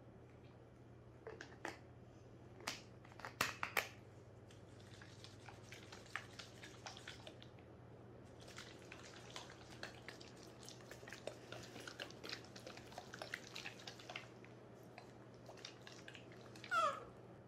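Light clicks and a long stretch of crackling rustle as a baby bottle and formula are handled, then near the end one short squeal from a baby macaque, falling sharply in pitch.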